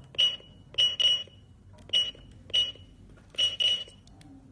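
GSM alarm control panel beeping: seven short, high electronic beeps at uneven spacing, the key-press prompt tones given as its keypad buttons are pressed.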